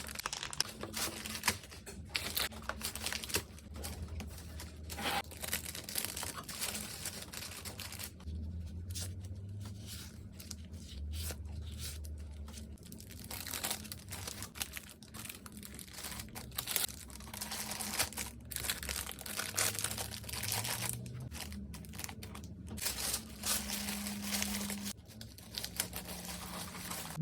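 Packaging being handled while packing an order: continual crinkling and rustling of plastic and paper wrapping, with sharp crackles and tearing sounds.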